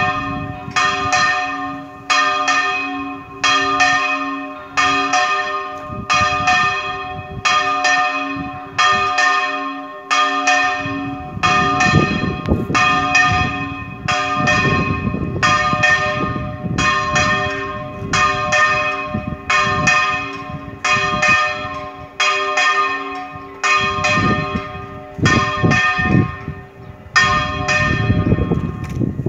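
A single church bell rung in a repique: its clapper strikes steadily about once a second, and each stroke rings on into the next.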